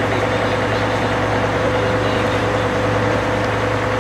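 Vehicle engine idling steadily: a constant low drone with a thin, steady hum above it.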